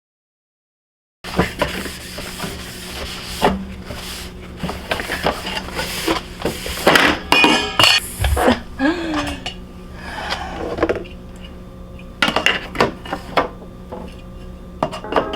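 Glass bottles and jars clinking and knocking together, with items clattering as they are handled while a fridge is cleared out. The clinks start after about a second of silence and come irregularly.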